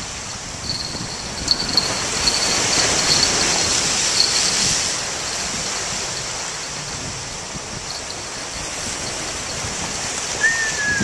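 Ocean surf breaking and washing over shoreline rocks, a steady rushing noise that swells loudest a couple of seconds in and then eases. A brief high whistle-like note sounds near the end.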